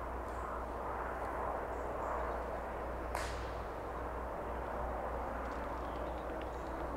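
Wind in bracken and long grass, a steady rushing, with one sharp swish about three seconds in and a few faint high chirps.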